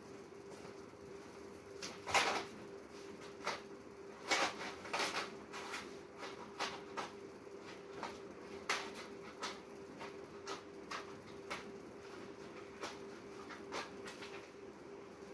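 Cardboard cartons and packages being handled and stacked: irregular knocks, taps and rustles, the loudest about two seconds in and again around four to five seconds in, over a steady faint hum.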